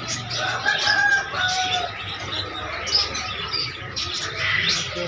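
Many caged birds chirping and tweeting at once in quick, overlapping short calls, over a steady background hubbub.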